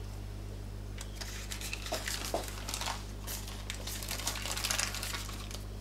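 Faint rustling and a scatter of light clicks as baking paper is peeled off a sheet of lattice-cut puff pastry, over a steady low electrical hum.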